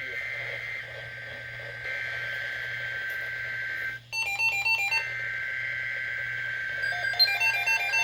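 Electronic alert signal tones from an emergency-alert broadcast: a steady two-tone signal, broken about four seconds in by a second of rapid stepped beeps, with a run of beeping, melody-like electronic tones starting near the end, over a low steady hum.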